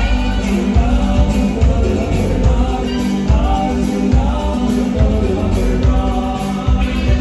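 Live band music from a saxophone-led regional Mexican group, with a steady pulsing bass beat under a lead melody.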